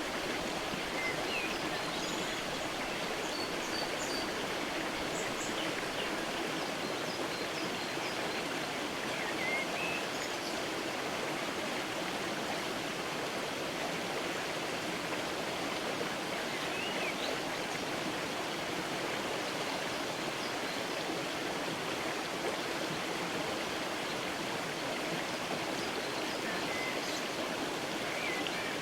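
Creek water rushing steadily, with faint, brief bird chirps here and there.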